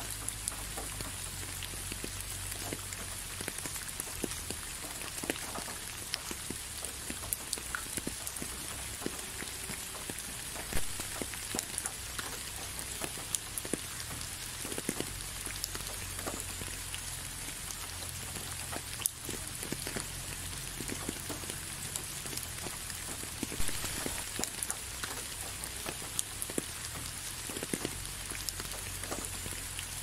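Steady rain falling, with many individual drops ticking close by over an even hiss. A couple of louder drop hits come about a third of the way in and again near three-quarters.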